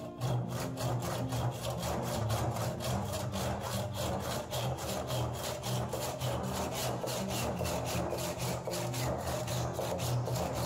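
Hand saw cutting through the end of a boxwood hammer handle, quick even back-and-forth strokes that start just after the beginning and stop at the end.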